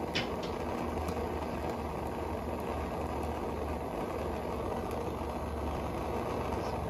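Bernzomatic hand-held propane torch burning steadily as it heats a copper pipe joint to sweat solder onto it, with a short tick near the start.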